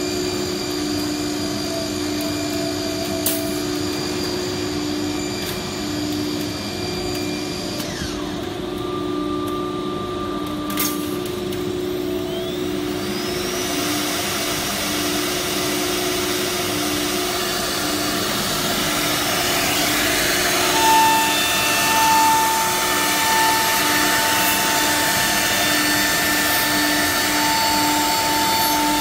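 Holztek R1325 CNC nesting router running, a high spindle whine over the steady noise of its dust extraction as the head works across a panel. The whine changes pitch several times, gliding upward about halfway through, and a louder steady whine sets in about two-thirds of the way in.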